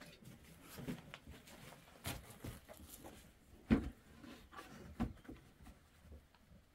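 Handling noises: cloth rustling and a few soft knocks, the loudest about halfway through as a round bread board is set down on a cloth spread on the floor.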